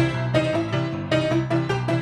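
Piano music accompanying a silent film: a steady run of struck notes, about three a second.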